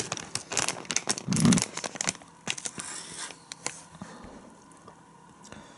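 Foil-lined snack bag crinkling as it is handled and turned over, in quick crackles that thin out after about three and a half seconds and then stop.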